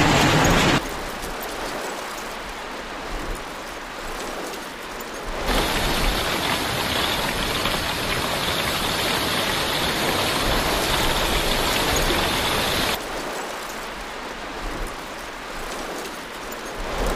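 Heavy rain and hail storm noise: an even rushing hiss with no distinct events. It jumps abruptly louder about five seconds in and drops back about thirteen seconds in.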